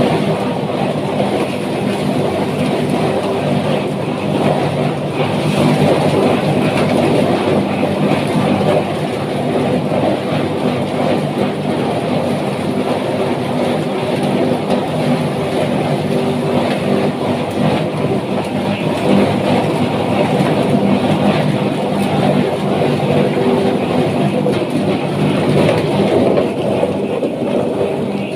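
Chicken feather plucking machine running steadily: a constant motor hum under a dense, even mechanical noise.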